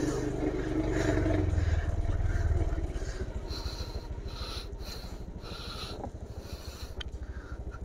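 Motorcycle engine pulling away, louder for the first two to three seconds as it accelerates, then settling to a quieter, steady run.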